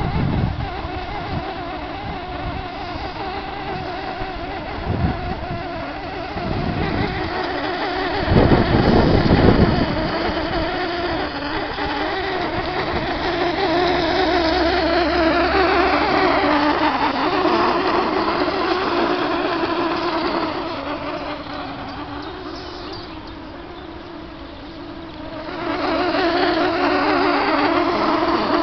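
A strange, creepy droning buzz that waxes and wanes, which the uploader takes for water streaming through a buried circulation system. A low rumble comes in about eight seconds in; the drone sinks about three-quarters of the way through, then swells back near the end.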